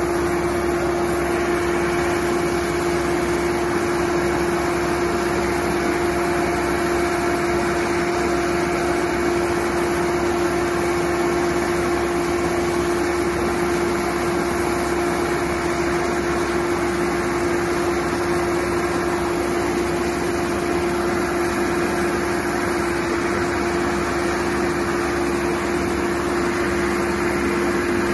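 Massey Ferguson 6712 tractor's diesel engine running steadily, with a constant even tone over the engine noise, as the tractor creeps forward very slowly in its super creeper gear.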